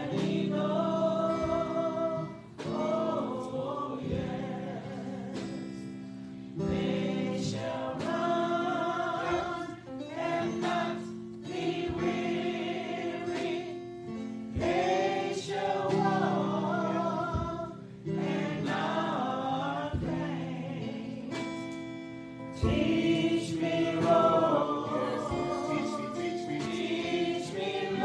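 A group of voices singing a gospel song over steady, sustained instrumental chords.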